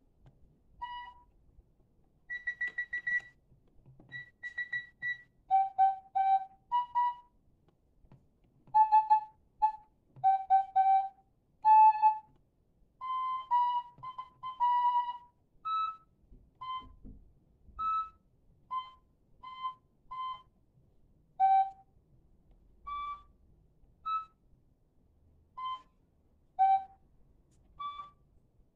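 Digital keyboard played one note at a time: a slow, uneven single-line melody with pauses between short phrases, as someone working out a tune. A few quick repeated higher notes come about two seconds in.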